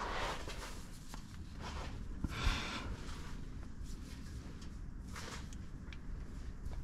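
A man's hard breaths of effort and small handling noises as he tries to twist a too-tight spin-on oil filter off by hand, with a faint knock about two seconds in.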